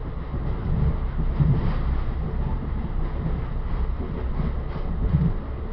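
Steady low rumble of an ex-Metroliner passenger cab car's wheels running over the rails at speed, heard from inside the car, with a few faint knocks.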